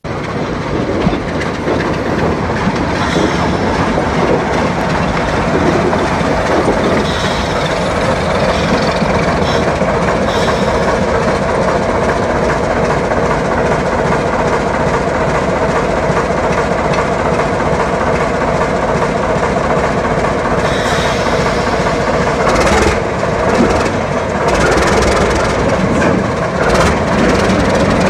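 Baldwin diesel switcher locomotive running steadily as it moves along the track. Its wheels clatter over the rails, with a few sharp knocks near the end.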